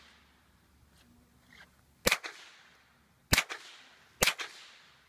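Three gunshots, about a second apart, each a sharp crack with a short echoing tail.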